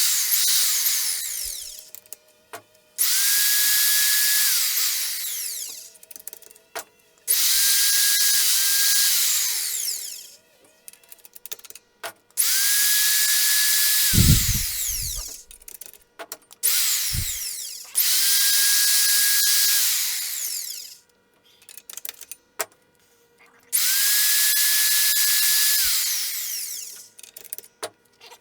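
Motor of a pedal-controlled powered tubing roller running in repeated short bursts, about six in all. Each starts abruptly with a steady whine and then winds down, with quiet gaps between runs and a single low thump near the middle.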